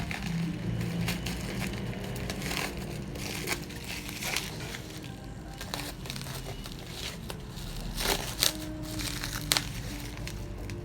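Packaging of laminating film being handled and unboxed: irregular crinkling and crackling, with a few sharper snaps in the last few seconds.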